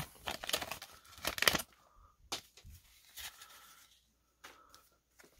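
Paper wax-pack wrapper crinkling and tearing as it is pulled open off a stack of baseball cards, then a few soft clicks and rustles as the cards are handled.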